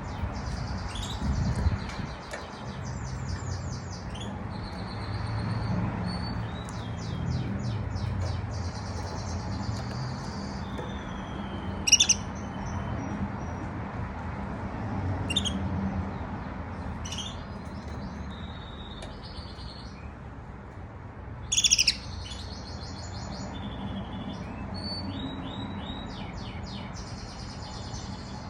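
Young domestic canary's first soft singing (subsong): rambling runs of rapid trills and chirps, with two sharp louder notes, one about twelve seconds in and another about twenty-two seconds in.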